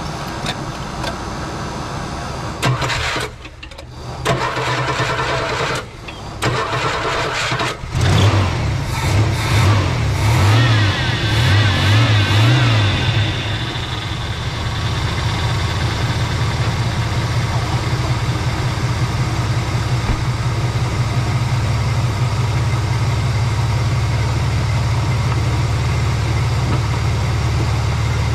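Carbureted car engine being cranked and started: it catches about eight seconds in, revs up and down for a few seconds, then settles into a steady idle.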